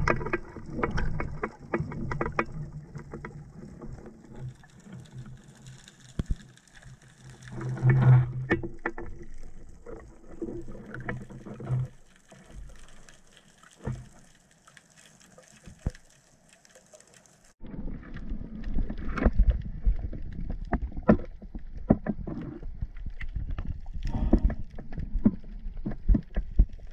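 Water around an underwater camera housing on a speargun: muffled knocks and thumps during the ascent, then, about two-thirds of the way through, the camera breaks the surface and a dense crackle of splashing and lapping water sets in.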